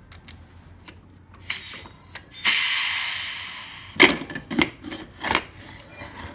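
Pressure cooker letting out leftover steam as its lid is unlocked: a short hiss, then a longer, louder hiss that fades away. It is followed by several metallic clanks and knocks as the lid is worked loose and lifted out.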